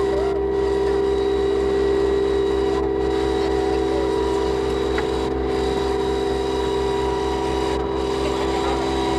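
Boat engine running steadily under way, a constant drone with a pulsing low rumble beneath it.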